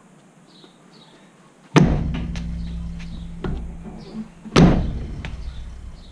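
Two hard kicks against a car's tyre and alloy wheel, about three seconds apart. Each is a loud thud with a low rumbling ring that dies away. The wheel is seized to the brake rotor and is not coming off.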